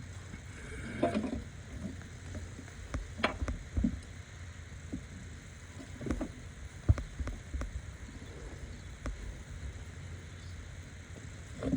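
Scattered knocks and clinks of tools and metal parts being handled during engine disassembly, irregular, with the sharpest knock about seven seconds in, over a steady low hum.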